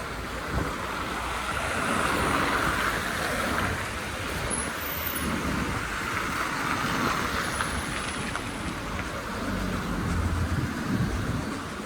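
Street traffic: vehicles passing with tyre noise that swells and fades twice, then the low engine rumble of a heavier vehicle near the end.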